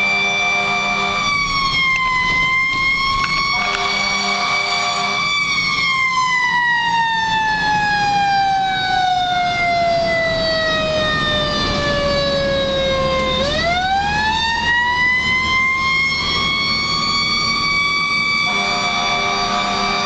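Fire engine siren wailing. Its pitch slides slowly down for several seconds, then sweeps quickly back up about two-thirds of the way through. A lower, steady horn sounds three times: at the start, a few seconds in, and near the end, over the truck's engine rumble.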